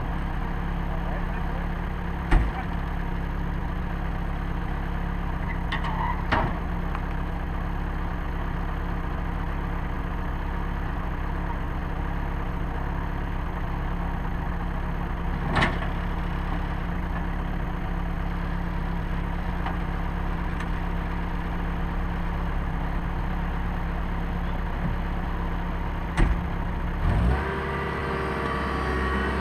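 Bobcat Toolcat 5600's diesel engine idling steadily, with a few sharp clicks. Near the end the engine note changes and rises as the machine is driven off.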